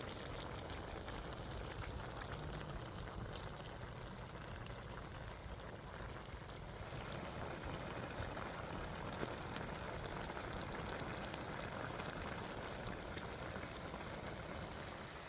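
A pot of spicy-braised pork intestine bubbling steadily, with scattered small ticks.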